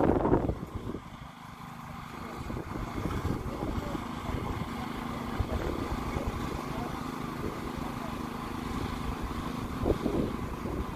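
Steady engine hum of emergency vehicles idling, with one low held tone. There is a loud burst of noise at the very start and a brief louder bump near the end.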